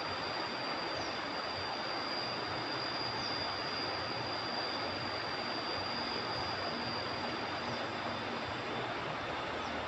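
Steady rush of flowing river water, with a thin, steady high tone above it.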